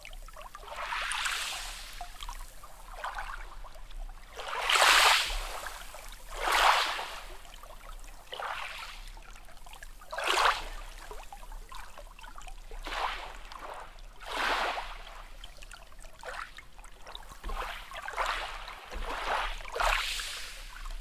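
Small sea waves lapping and washing in over and over, a short rush of water every one to two seconds, with the loudest around the middle.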